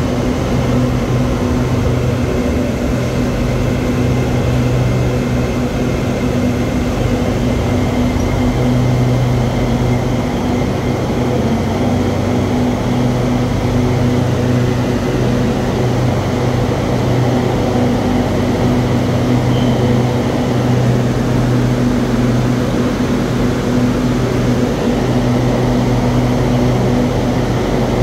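Steady hum of an SRT Red Line electric commuter train standing at the platform, with several held tones, low and high, over an even rush of air-conditioning noise.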